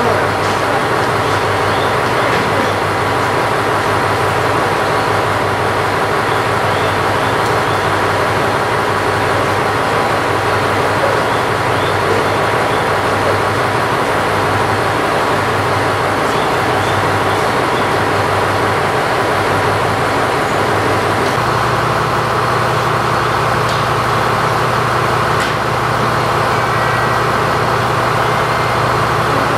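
KiHa 100 series diesel railcar's engine running steadily. About two-thirds of the way through, the engine note changes to a lower, stronger and steadier tone.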